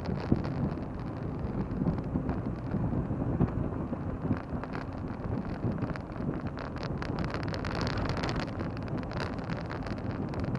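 Car driving along a road: steady low rumble of road and tyre noise mixed with wind buffeting the microphone.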